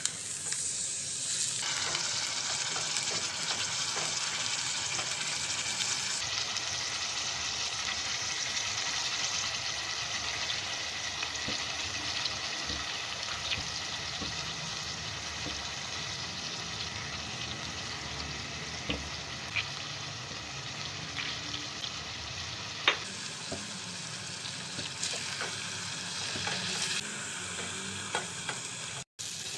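Beef pieces sizzling in hot oil in a steel pot, browning until the meat changes colour: a steady frying hiss. A wooden spoon stirs and knocks against the pot now and then, with one sharper knock about two-thirds of the way through.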